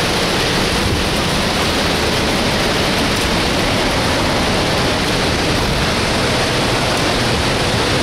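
Steady, loud rush of a waterfall close by, with falling water and spray making an even, unbroken hiss.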